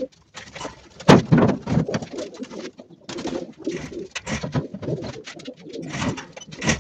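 Domestic pigeons cooing, with a sharp knock about a second in.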